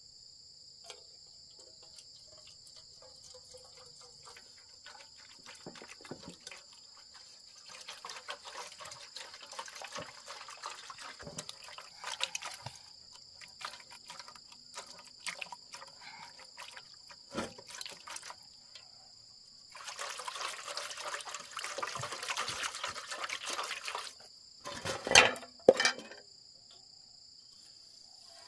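Hands swishing rice in water in a metal cooking pot, then the rinse water sloshing and being poured off, with two loud knocks about three seconds before the end. Crickets trill steadily throughout.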